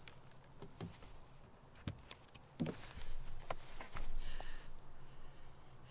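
Scattered soft knocks and clicks from a caught bass being handled and repositioned on a boat deck, loudest around three to four seconds in, over a faint steady low hum.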